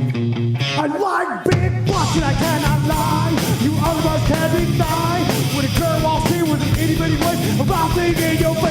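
A rock band playing live. A steady, chugging guitar and bass riff runs for about a second, then slides down in pitch. About a second and a half in, the full band comes in under a sung vocal line.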